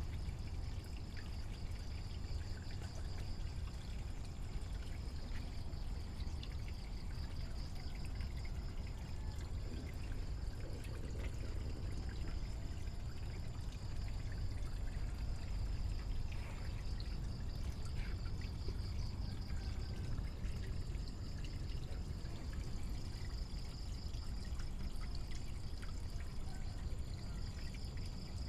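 Water pouring and trickling steadily into a tarpaulin tank. A thin, steady, pulsing high tone runs beneath it.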